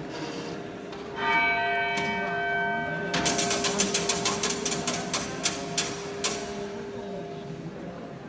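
Salisbury Cathedral's 14th-century iron turret clock: its bell is struck once and rings on, then the mechanism gives a rapid run of sharp clicks and clacks, about five a second for some three seconds, thinning out toward the end.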